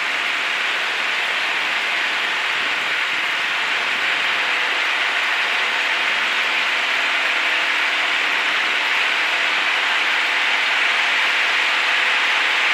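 Steady cockpit noise of a Cessna 152 rolling on the runway: a dense hiss of airflow over the cabin with the four-cylinder Lycoming engine humming faintly underneath, growing a little louder near the end.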